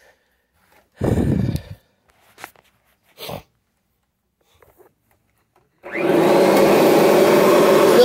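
A 1991 Kirby Generation 3 upright vacuum cleaner is switched on just before six seconds in. Its motor comes up to speed at once and runs steadily and loudly. Before that there are a few short handling noises, the loudest about a second in.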